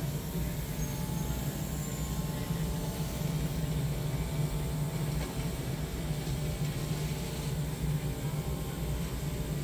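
Automatic fabric cutting machine running with a steady low hum while it cuts an 8 cm fabric stack held down under vacuum beneath plastic film.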